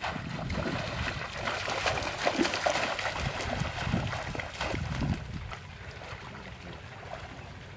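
Feet splashing as two people run and wade through a shallow stream, with conical bamboo fish traps plunged into the water. The splashing is loud and choppy at first, then eases off about five seconds in.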